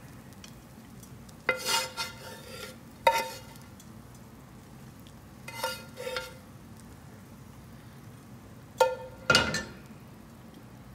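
Metal spoon scraping and knocking against a frying pan while scooping stir-fried peppers and aromatics out, four times a few seconds apart, each knock leaving a short metallic ring.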